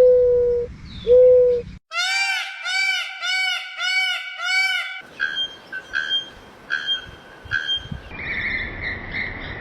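A string of different bird calls, switching abruptly several times. First come low, pure hoots. About two seconds in, a rapid series of arched, ringing notes begins, and then short repeated calls and a steadier high-pitched call follow.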